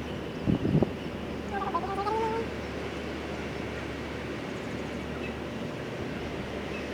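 Steady outdoor rumble of wind on the microphone, with two short bumps about half a second in and a faint, brief pitched call about two seconds in.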